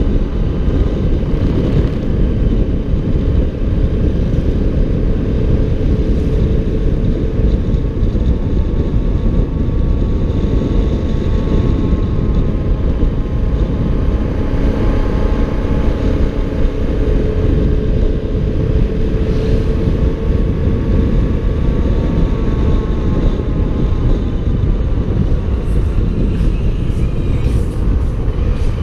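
Motorcycle engine running on the move, its pitch slowly rising and falling, under a loud, steady low rumble.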